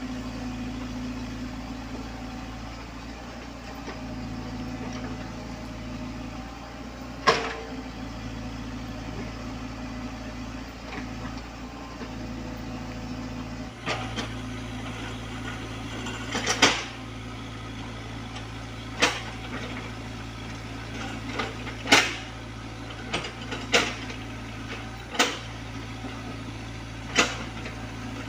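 Komatsu PC75UU mini excavator running steadily at work, with sharp knocks from the machine: one about seven seconds in, then several more over the second half.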